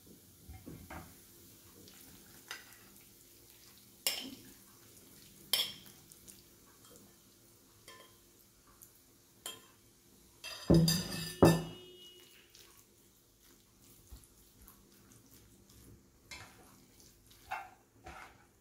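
A spoon and a plastic spatula scraping and knocking against a bowl and a nonstick pan as cooked chicken is scraped into frying vegetables and stirred. The clicks come sparsely, with a louder cluster of scrapes and knocks about eleven seconds in.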